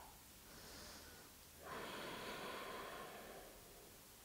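A woman breathing audibly: a soft breath, then a longer, slightly louder one starting about a second and a half in and fading out about a second and a half later.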